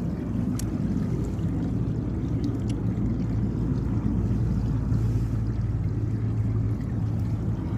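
Steady low rumble of water running in a farm irrigation channel.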